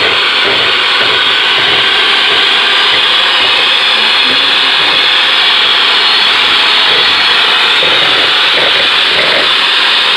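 Electric hand mixer running steadily, its beaters whirring through cocoa cake batter in a plastic bowl.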